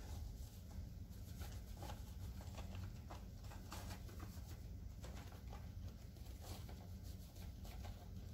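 Faint irregular patter and rustle of powdered sugar being shaken from a cardboard box and patted by hand onto a candy roll on a cloth towel, over a steady low hum.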